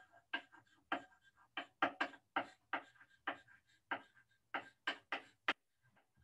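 A run of short, sharp clicks at an uneven pace, roughly two or three a second, from someone operating a computer. The clicks stop about five and a half seconds in.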